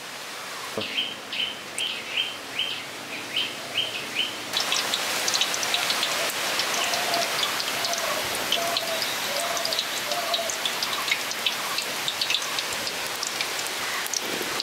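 Battered egg chops frying in hot oil: a sizzle full of small crackles that jumps up suddenly about four and a half seconds in. Before the jump a bird chirps about eight times in quick succession.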